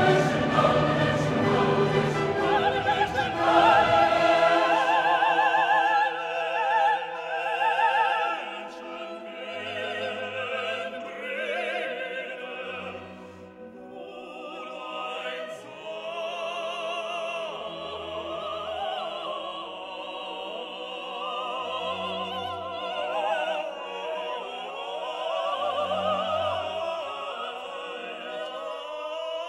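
Background music: operatic singing with a wide vibrato over orchestral accompaniment, with short held bass notes.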